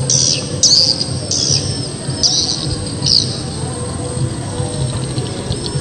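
Birds chirping: a quick run of short, sharp calls in the first three seconds, then fainter chirps, over a steady high-pitched whine.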